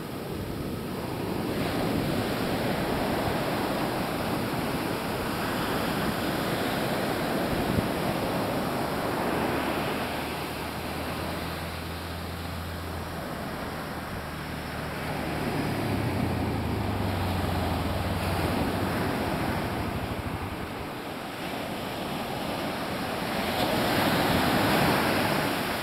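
Ocean surf breaking and washing up a sandy beach, swelling and ebbing every several seconds, with wind on the microphone.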